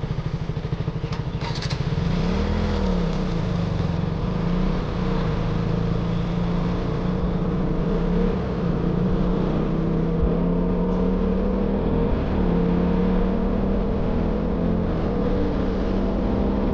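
Single-cylinder 200 cc sport motorcycle engine, first ticking over with an even pulse, then from about two seconds in pulling away with its pitch rising and falling before settling into a steady run. A few brief clicks about a second and a half in.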